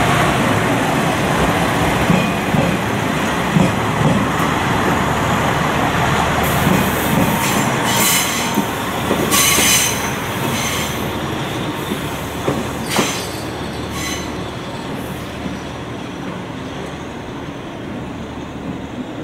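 Red KiHa 40-series diesel railcars running past and pulling away along the track, with a steady rumble of engine and wheels. Several short, high-pitched wheel squeals come between about 6 and 15 seconds in. The sound fades slowly as the train draws off.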